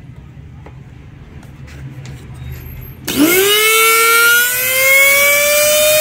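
Rewound Oster blender universal motor switched on about halfway through. It spins up with a quickly rising whine that keeps climbing slowly into a loud, steady high-pitched whine. Its brush leads have just been swapped to reverse its rotation.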